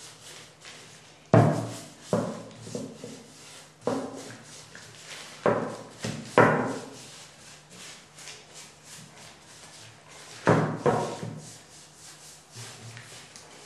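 Wooden knocks and thuds, about seven of them spaced irregularly, as bentwood chair rings are handled and set against each other and the worktable while varnish is brushed on. Between them, faint rubbing of the brush, over a low steady hum.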